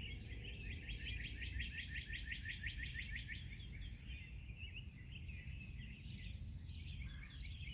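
Songbirds singing: one gives a fast trill of rapidly repeated chirps over the first few seconds, then looser chirping follows. A steady low rumble runs underneath.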